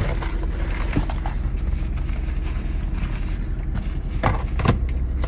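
Steady low rumble of a vehicle, with a few light knocks and clicks about a second in and twice near the end.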